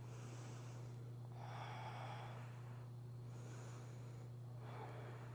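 Faint, slow breathing, two long breaths drawn in and let out while a yoga pose is held, over a steady low electrical hum.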